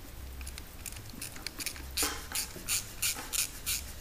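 Small hand ratchet clicking in quick repeated strokes, about three a second from about halfway through, as it tightens the bolts of a piercing line tap valve clamped on a copper refrigerant line. Before that there are a few faint ticks.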